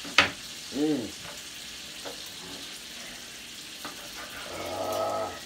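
Steaks frying in a skillet, a steady sizzle. About a quarter second in there is one sharp knock of a knife on a wooden cutting board, and a short vocal sound follows, with another brief hummed sound near the end.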